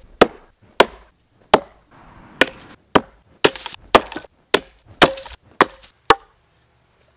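Hand-forged tomahawk, made from a ball peen hammer, chopping into a dry, dead tree trunk: a steady run of about eleven sharp blows, a bit under two a second, several leaving a short ring. The chopping stops about six seconds in.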